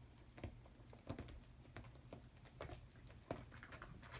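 Kittens' claws and paws scrabbling faintly on a fabric box spring and a wooden floor: scattered soft taps and scratches over a low steady hum.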